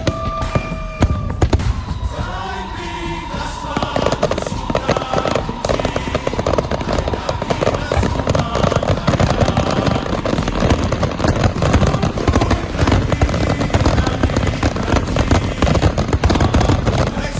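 Fireworks going off in a dense, continuous crackle, growing thicker about four seconds in.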